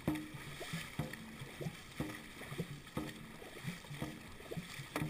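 Dragon boat crew paddling in unison, with a sharp hit about once a second on each stroke over water rushing along the hull.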